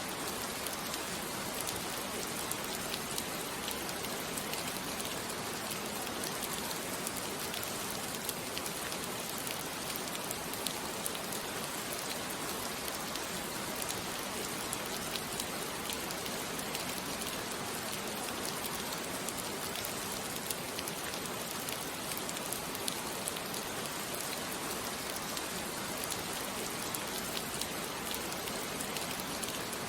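Steady rain falling on a surface, an even hiss with faint scattered drop ticks.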